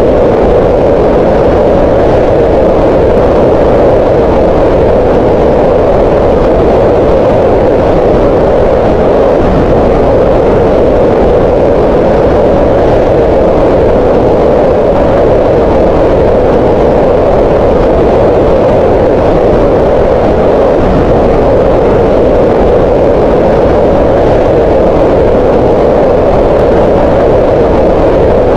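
Green noise: a loud, unchanging hiss with most of its energy in the middle of the pitch range and little high treble.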